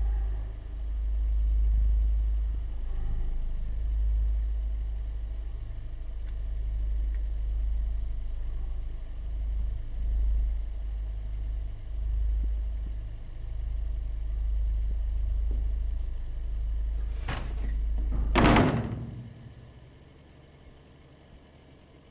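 A deep, steady low rumble, then two loud knocks about a second apart, after which the rumble stops suddenly.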